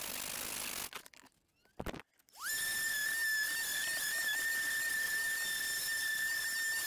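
Sandpaper rubbing on a wooden hatchet handle for about a second, then one short stroke. About two and a half seconds in, a steady high-pitched whistle slides quickly up to one note and holds it.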